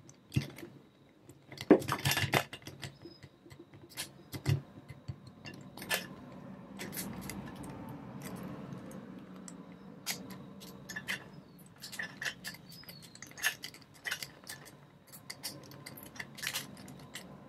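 Medusa rake pick worked in and out of a Millenium pin-tumbler door lock's keyway under light tension: irregular light metal scraping with many small sharp clicks as the pins are jostled.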